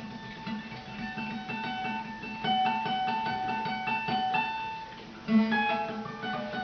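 Music played on a plucked string instrument: a picked melody of single notes, with a sharper, louder note a little after five seconds in.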